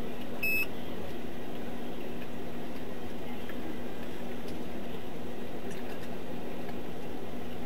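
Steady hiss with a constant low hum, the background noise of a police car's dash-camera audio, with a short electronic chirp about half a second in.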